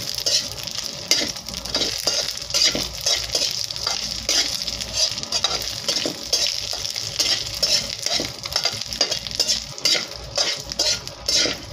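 Small dried anchovies (dilis) frying in hot oil in a metal pot, sizzling steadily, while a metal spatula stirs them, scraping and knocking against the pot in irregular strokes.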